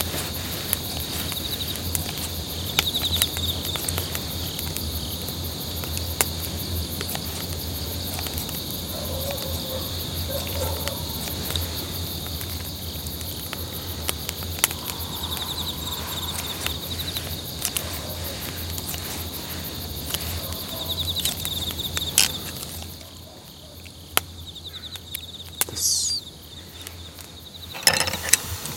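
A steady chorus of chirping insects with short trills, under scattered sharp clicks and snips from kitchen scissors and metal tongs cutting tripe and greens over the pan.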